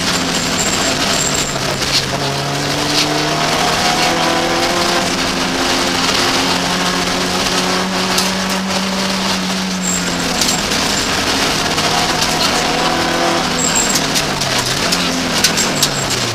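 BMW 318 iS rally car's engine heard from inside the cabin at full stage pace, revs climbing and falling through the gears over steady road and tyre noise. Near the end the revs drop and pick up again twice, as on braking and downshifting into a bend.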